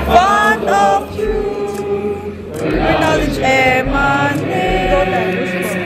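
A group of voices singing a school hymn in held, slow notes.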